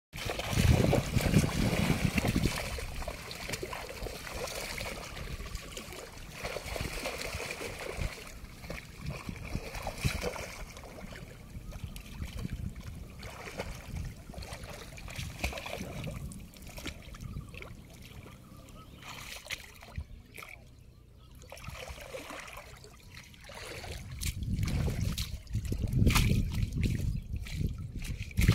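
Shallow water splashing and sloshing as a bamboo-poled push net is shoved through it by a wading person, with trickling water. It is loudest in the first couple of seconds and again near the end, where a hand stirs the water in the net.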